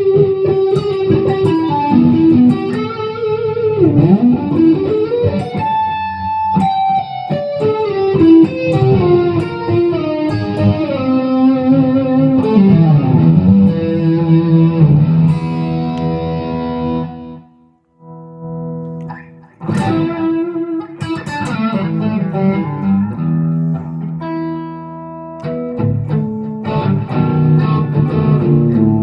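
Epiphone Les Paul Custom electric guitar with Gibson 490 humbuckers being played: a run of single-note lead lines with string bends, a pause of about two seconds roughly two-thirds of the way through, then the playing resumes.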